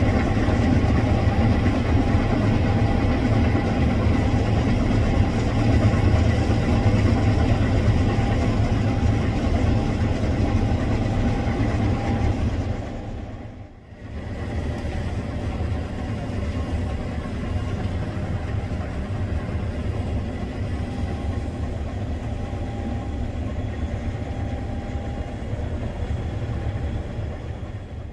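Case IH 7140 Axial-Flow combine running steadily while harvesting sunflowers: a deep, even drone with a faint high whine. About halfway through the sound fades away briefly and then comes back at much the same level.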